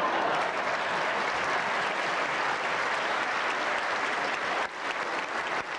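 Theatre audience applauding steadily, dipping briefly near the end.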